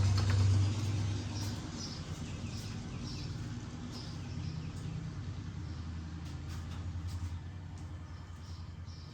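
A vehicle engine rumbling nearby and slowly fading away, with faint bird chirps.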